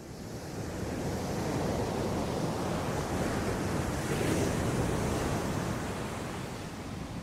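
Steady rushing outdoor noise that fades in from silence at the start and then holds even, with no pitch or rhythm in it.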